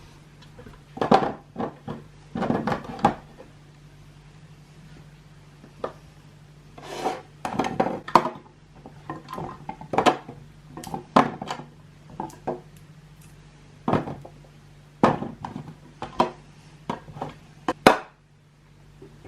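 Containers, jars and boxes being handled and set down on fridge shelves: a string of irregular clatters and knocks, some in quick clusters, over a steady low hum.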